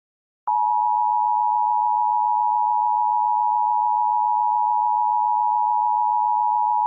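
Emergency Alert System attention signal: a loud, steady dual-tone electronic alarm that starts about half a second in and holds one unchanging pitch without a break.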